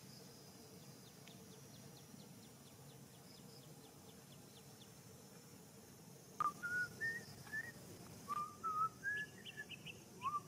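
A bird calling: short clear whistled notes, each sliding upward, given in runs that climb step by step in pitch, starting about six seconds in. Before it, only faint quiet outdoor background with soft rapid ticking.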